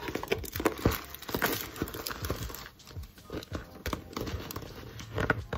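Handling noise from a Louis Vuitton monogram canvas toiletry pouch being held open: irregular rustling and crinkling of the coated canvas, its zip and a plastic bag inside it.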